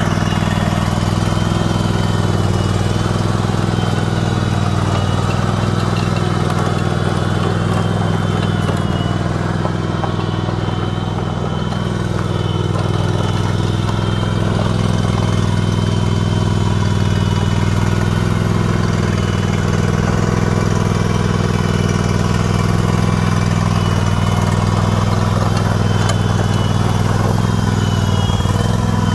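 John Deere riding lawn mower engine running steadily, easing off slightly for a couple of seconds around the middle.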